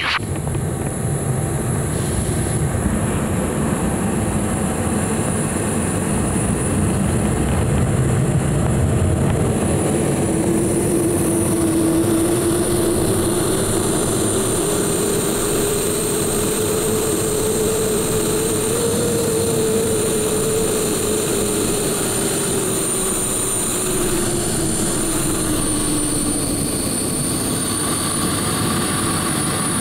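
The BD-5J micro-jet's small turbojet running in flight with air rushing past the canopy, heard from inside the cockpit: a steady rush with a thin high turbine whine. A lower hum rises and then sinks back again from about ten seconds in.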